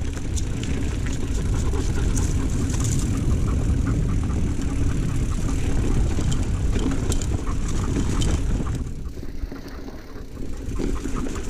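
Mountain bike riding fast down a dirt singletrack: wind rumbling on the camera microphone, tyres rolling over dirt and gravel, and rattles and clicks from the bike over bumps. The rumble eases for a second or two near the end.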